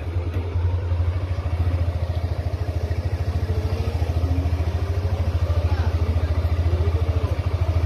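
A small engine running steadily close by, a low hum with a fast, even throb that holds at the same level throughout.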